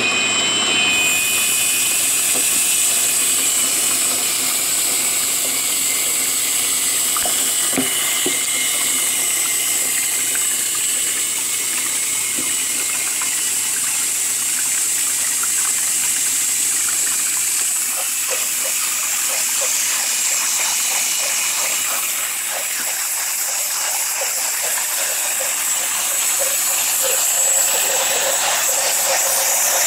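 Brushless motors of a Hubsan H501S X4 quadcopter running in water, the propellers churning it: a steady rushing, splashing noise with a thin high whine.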